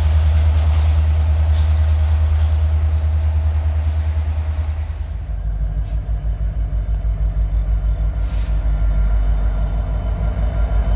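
Norfolk Southern diesel freight locomotives running: a deep, steady engine rumble from a passing freight train, changing about five seconds in to a pulsing low engine throb from an approaching diesel locomotive. A short hiss comes about eight seconds in.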